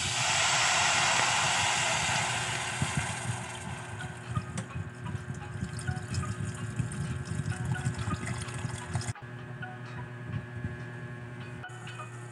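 Water poured from an electric kettle into a hot saucepan of sautéed mushrooms. It sets off a sudden loud hiss for the first three seconds or so as it hits the hot pan, then settles into a quieter pouring rush with small splashes.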